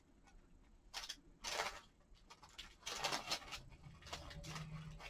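A cellophane bag crinkling and paper die-cut numbers rustling as they are shaken out and spread by hand, in a few short bursts, the loudest about a second and a half in and around three seconds in.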